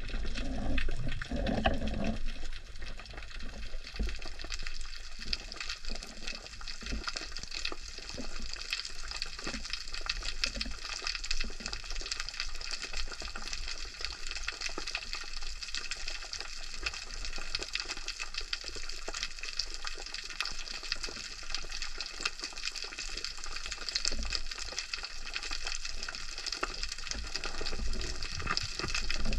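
Underwater ambience heard through a GoPro's waterproof housing: a steady crackling hiss, with a low rumble during the first two seconds.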